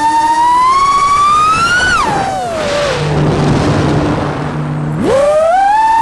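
Brushless motors of a 6S FPV quadcopter with 1950 kV motors whining, the pitch climbing with throttle, then dropping steeply about two seconds in with a rush of air as the throttle comes off for a dive, and jumping sharply back up about five seconds in as the throttle is punched again.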